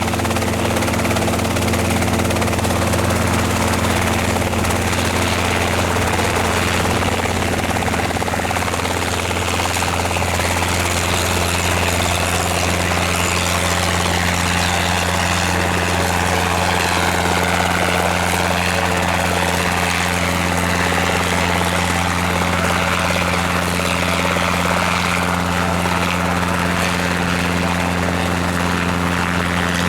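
Robinson R22 helicopter running steadily: its piston engine and rotors make a constant low drone.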